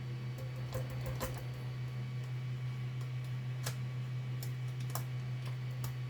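Scattered plastic clicks and taps from the Nerf Zombie Driller blaster's internal parts being handled and pressed together: a cluster about a second in, then single clicks every half second or so. A steady low hum runs underneath.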